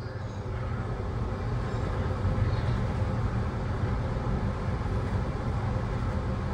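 Sydney Metro driverless Alstom Metropolis train heard from inside at the front, running through a tunnel: a steady low rumble of wheels on rail that swells over the first couple of seconds, then holds.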